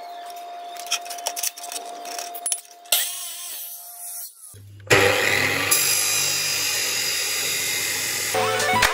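Abrasive chop saw with a cut-off wheel grinding through a steel bar. Light clicks come first, then about halfway in a loud, steady grinding cut over a low motor hum begins and runs until near the end.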